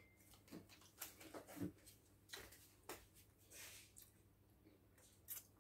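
Near silence: faint scattered clicks, taps and soft rustles of people eating with their hands at a table, over a low steady room hum.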